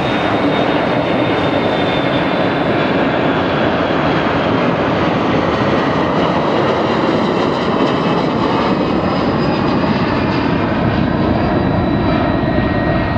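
Boeing 737-300's CFM56-3 turbofan engines at takeoff climb thrust as the jet passes close overhead and moves away: a loud, steady roar with thin high whining tones from the fans. A whine near the top falls slightly in pitch over the first few seconds, and the highest hiss thins out as the aircraft recedes.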